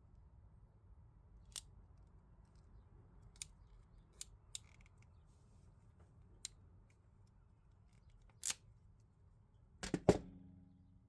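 Scattered sharp clicks and knocks from hand tools being handled, about six single clicks spread out, then a louder double clatter near the end that rings briefly.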